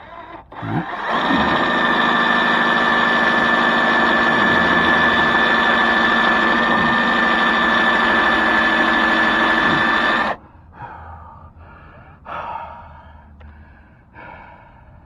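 Electric drill running steadily in reverse with a steady whine against a stuck body-molding screw that it is barely drilling out. It stops suddenly after about nine seconds, and heavy breathing follows.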